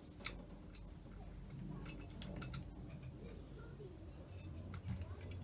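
Scattered light clicks and taps of hand tools and small metal parts as a Holley 4160 carburettor is taken apart, with a cluster of clicks about two seconds in.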